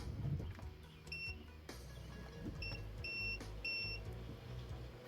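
Four high electronic beeps, the last three longer, over a steady low hum.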